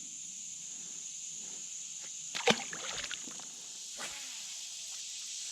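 Steady, high-pitched drone of insects calling, with a short cluster of knocks and clicks about two and a half seconds in and a fainter click a little later.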